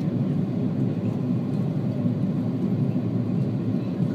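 Steady low cabin drone of an Airbus A330-200 in descent, the engines and airflow heard from a window seat over the wing.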